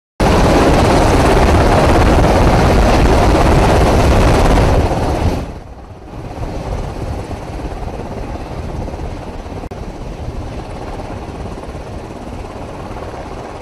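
Steady rushing, rumbling noise on an aircraft carrier's flight deck at sea, with strong low rumble. It starts suddenly and is loud for about five seconds, then drops to a lower, steadier level for the rest.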